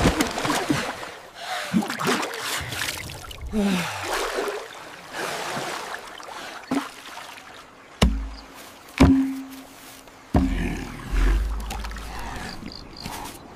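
Water splashing and sloshing as people scoop it up with clay pots and drink, with a few short gasps. Two sharp, deep thuds a second apart come about two-thirds of the way through, followed by a low rumble.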